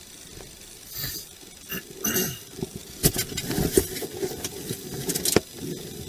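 Rustling and clatter of movement close to a body-worn camera's microphone, with several sharp knocks from about three seconds in.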